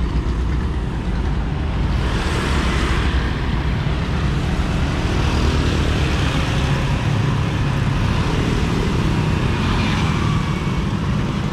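Road traffic, mostly motorbikes, passing close by on a bridge. The hiss of vehicles swells as they go past, about two, six and ten seconds in, over a steady low rumble.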